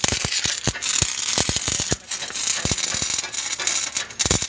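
Stick welding arc crackling and sputtering steadily as the electrode burns. It breaks off briefly about halfway through and again near the end.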